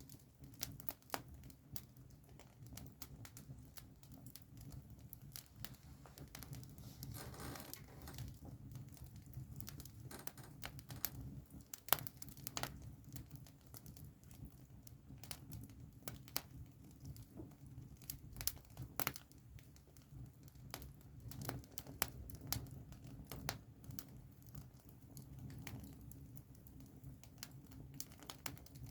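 Wood campfire crackling: irregular sharp pops and snaps scattered throughout, over a steady low background noise, with a brief hiss about seven seconds in.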